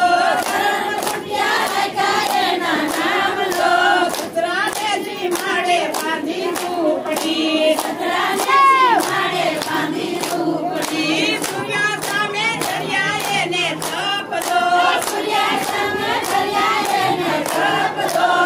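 A group of women singing a devotional song (bhajan) together in unison, keeping time with steady rhythmic hand-clapping.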